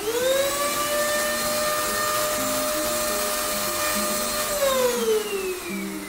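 Eureka Forbes Super Clean handheld vacuum cleaner switched on: its motor spins up with a rising whine, runs steadily with a loud, noisy high whine for about four seconds, then winds down with a falling whine as it is switched off near the end.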